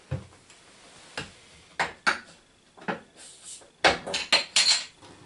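Clinks and knocks of a 500 ml glass beer bottle being handled, then a quick cluster of sharp clicks about four seconds in as the crown cap is prised off with a bottle opener, with a short hiss of escaping gas.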